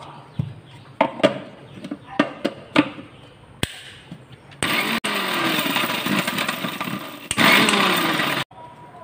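A Meenakshi & Meenakshi mixer grinder's small steel jar clatters into place with its lid. Then the grinder runs in short pulses, about four seconds in all with a brief break, coarsely grinding dried red chillies and garlic. It stops abruptly.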